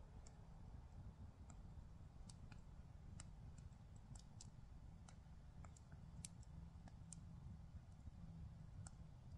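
Faint campfire crackling: scattered, irregular sharp pops and ticks from burning wood over a low rumble.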